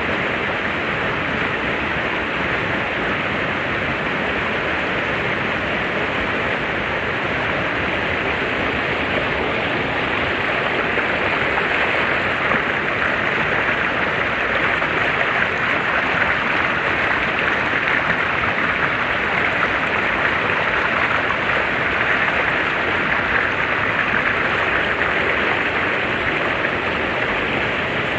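Steady rushing of flowing water, an even noise with no distinct events, a little louder through the middle.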